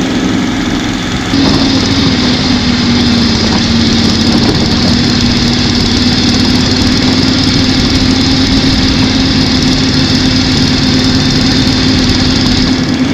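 Small single-cylinder engine of a Snow Dog tracked snow machine running under load while towing a cargo sled. It opens up about a second in, then holds a steady pace.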